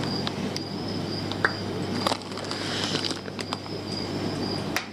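Plastic fish-shipping bags rustling and crinkling as they are handled, with scattered small clicks.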